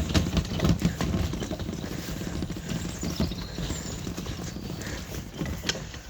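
Footsteps of a person walking on a path, an irregular run of knocks and thuds, loudest in the first second or so.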